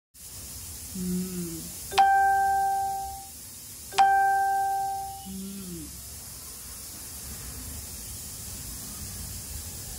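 Two struck bell-like chimes about two seconds apart, each ringing clearly and fading over about a second. A short low tone that falls in pitch comes just before the first and just after the second, and a steady hiss follows.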